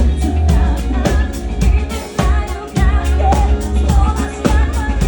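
Cover band playing a pop song live: a singer over drums and a steady bass line.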